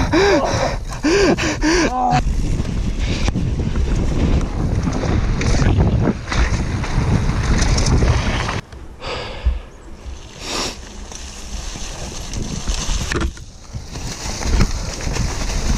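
Wind buffeting a GoPro on a downhill mountain bike at speed, with tyres rumbling over dirt and gravel and the bike rattling. A few short wavering tones sound in the first two seconds, and the noise drops for a few seconds in the middle.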